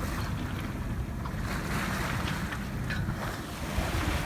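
Wind buffeting the microphone, with water rushing and splashing along the hull of a sailing yacht under way.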